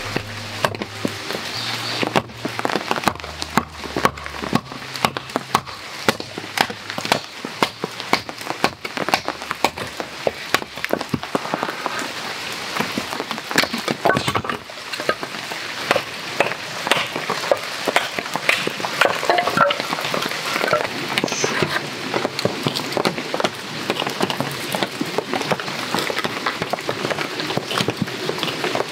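Heavy rain pattering steadily, with sharp knocks of a wooden baton striking the spine of a knife to split small kindling from firewood.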